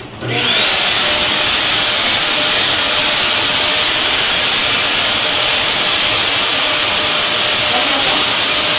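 A handheld hair dryer is switched on. Its motor spins up with a short rising whine in the first second, then runs steadily with a loud blowing hiss.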